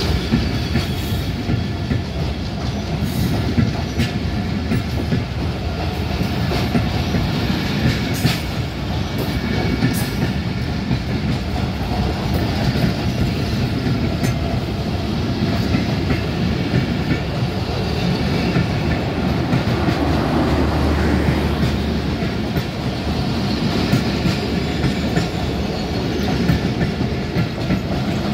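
Passenger coaches of an intercity express train rolling past close by: a steady rumble of steel wheels on the rails, with several sharp knocks as the bogies cross rail joints.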